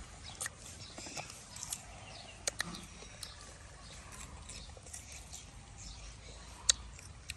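Gooseberries being bitten and chewed: scattered sharp clicks and crunches, the loudest a little before the end.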